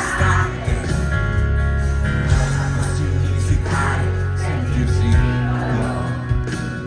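Live pop concert music over the venue's sound system, recorded from the crowd: a band playing with a steady bass, and a male singer's voice coming in over it now and then.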